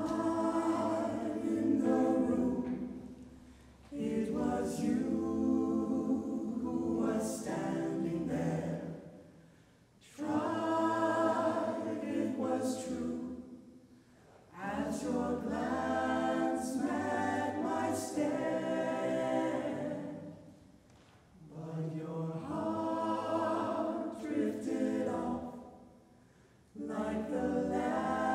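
Mixed-voice choir singing a cappella, with men's and women's voices together, in phrases of about five seconds separated by short breaths.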